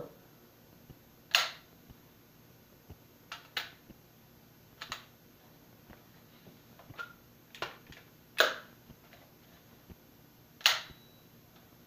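Scattered sharp clicks and snaps, about nine spread a second or more apart, from handling a Daisy 35 multi-pump pneumatic air gun being pumped, loaded and fired at only one or two pumps; the loudest click comes near the end.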